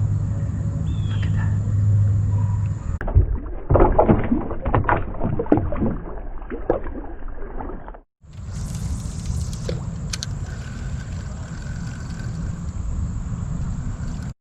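Steady low rumble on the microphone from a small boat on the water. Partway through it gives way to a few seconds of rapid knocks and clatter, then returns to a steady rumble after an abrupt cut.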